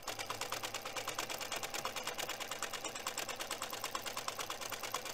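Sewing machine running at a steady speed, its needle mechanism clattering in a rapid, even rhythm of stitches.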